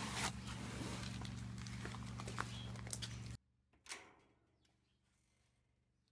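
Steady low hum with a few light clicks inside a car, cutting off abruptly a little past halfway. Then a single sharp click from the lock of a metal security screen door being worked, followed by near silence.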